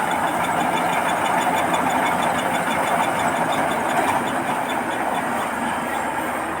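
Rice combine harvester running steadily, a dense mechanical drone with a fast, regular ticking over it.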